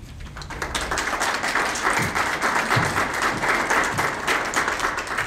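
Small audience applauding, many hands clapping. It swells in over the first second and dies away near the end.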